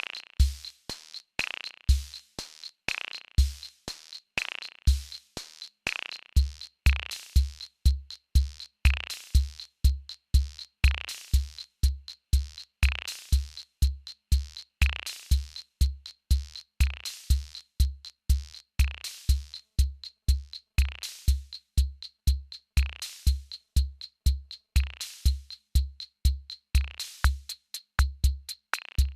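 Electronic drum machine beat: deep kick drum thumps, snare-like hits about every two seconds and fast ticking clicks. The kicks are sparse for the first few seconds and then fall into a busy pattern of several a second. A faint steady high tone runs underneath.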